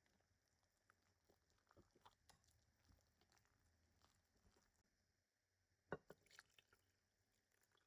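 Very faint wire whisk stirring thick batter in a glass bowl: soft wet scrapes and light clicks. About six seconds in comes a sharper clink and a few taps as a glass jug of water is tipped into the bowl.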